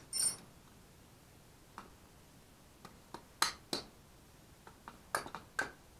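Hammer tapping a half-inch box-end wrench onto the 13 mm bolts of a Garrett turbo's cast iron exhaust housing, to get a grip that a 13 mm wrench slips off. A ringing metallic clink at the start, then about ten sharp metal-on-metal taps in uneven groups, the loudest a little past halfway and near the end.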